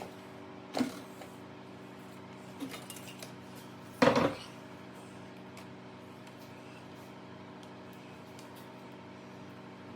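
Metal tools and parts knocking and clinking as they are handled, with a sharp knock about a second in and a louder clatter about four seconds in, over a steady hum.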